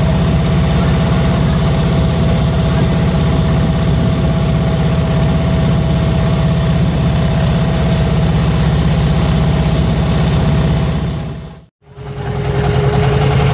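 Jiangdong 1125 single-cylinder diesel engine of a wooden river boat running steadily under way, a fast even chugging pulse. The sound fades out for a moment near the end and comes straight back.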